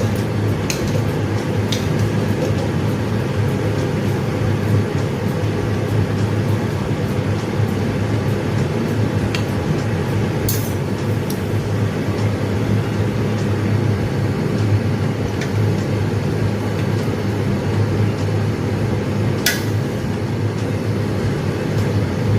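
A steady low mechanical hum with a strong drone, with a few light clicks scattered through it.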